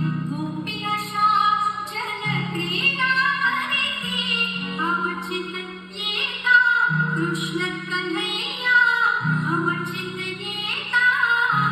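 A song with a woman singing a melody over long, held bass notes that change every two seconds or so.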